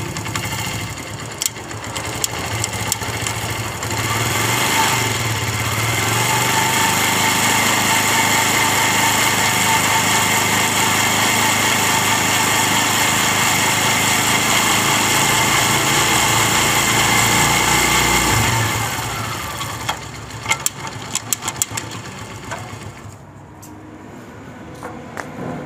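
Honda CD 70 motorcycle's small single-cylinder four-stroke engine running on a test after a front sprocket repair. It speeds up about five seconds in and holds steady for around twelve seconds, then slows down again, with light clicks near the end. No chain or sprocket knocking is heard: the knock is cured.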